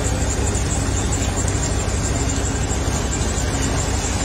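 A large SUV's engine running slowly close by, a steady low rumble with an even hiss over it.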